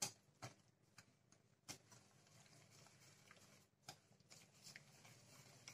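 Faint, irregular clicks of a wire whisk knocking against a glass mixing bowl while stirring, over near silence.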